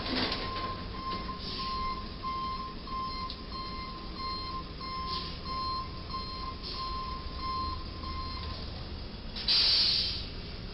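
An electronic beeper sounding a steady pitched beep about twice a second over a low traffic rumble, stopping about eight and a half seconds in; a short, loud burst of noise follows about a second later.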